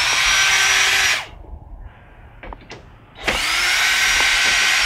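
Cordless drill running in two bursts, a short one at the start and a longer one from just past three seconds in, each spinning up with a rising whine before holding steady. A few light clicks fall in the pause between.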